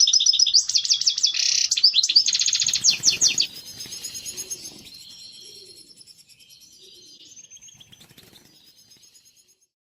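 European goldfinch singing its mating song, a rapid twittering run of high chirps and trills. It is loud for the first three seconds or so, then drops away and fades out near the end.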